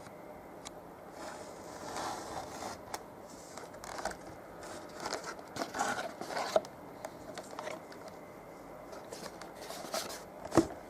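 Toy packaging being handled and opened: irregular scraping, rustling and crinkling of cardboard and plastic with scattered clicks, and one sharp click near the end.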